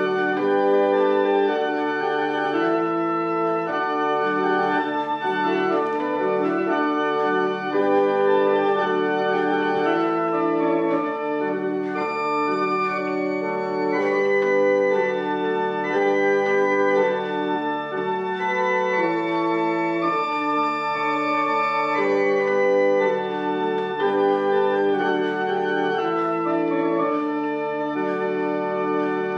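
An 1863 hand-pumped chamber pipe organ playing a piece in sustained, steady chords that move from one to the next about once a second without a pause.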